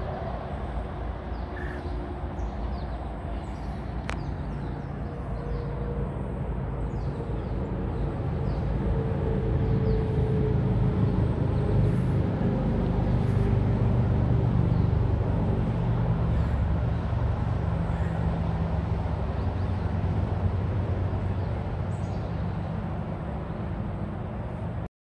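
Bicycle tyres rolling over a gravel towpath: a steady rolling rumble that grows louder toward the middle, eases off, and cuts off suddenly near the end.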